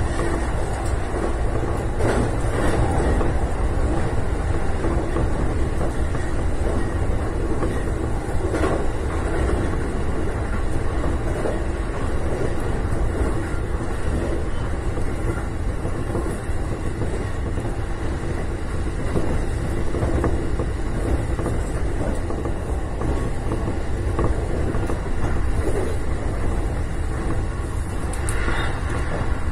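Electric train running along the track at speed: a steady rumble of wheels and running gear on the rails, with a few faint knocks.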